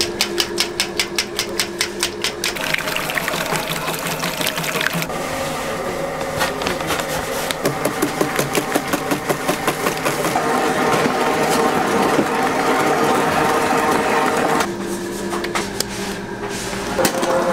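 Electric mixer motor humming steadily as its wire whisk beats a thick, creamy filling in a steel bowl. There are stretches of rapid, even ticking, about six a second, at the start and again in the middle, and the pitch of the hum shifts a few times.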